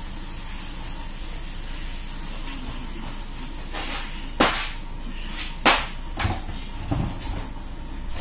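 Steady low room hum with two sharp knocks about four and a half and five and a half seconds in, followed by a few softer knocks.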